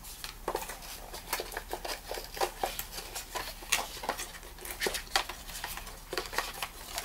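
Small objects being handled: a run of light, irregular clicks and taps, several a second.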